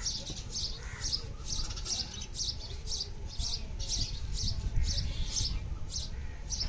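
A small bird chirping over and over, short high chirps about twice a second, over a steady low outdoor rumble.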